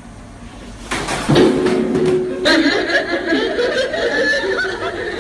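A short clatter as a man falls from his seat to the floor, followed about two and a half seconds in by sustained laughter.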